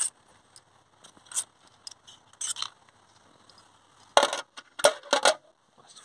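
Small steel coil-pack bolts being worked loose and handled, with scattered light metallic clicks and scrapes, then a quick run of loud clinks about four seconds in as the bolts are dropped into a stainless steel parts tray.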